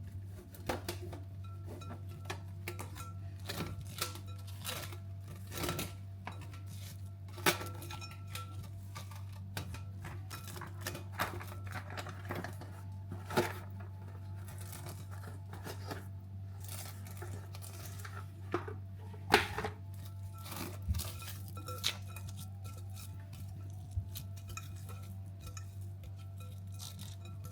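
Kitchen clatter during baking: utensils, bowls and dishes knocking and clinking in irregular sharp taps, with a few louder knocks, over a steady low hum.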